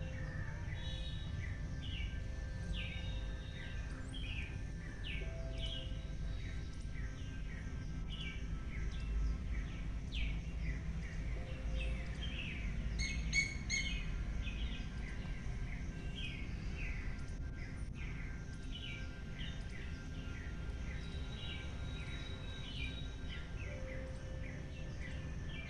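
Small birds chirping in short, repeated calls over a steady low outdoor rumble, with one brief louder call about halfway through.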